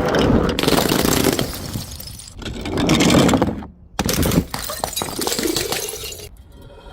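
Glass breaking and crunching: a dense, crackling shatter in two long spells, with a brief silence about four seconds in.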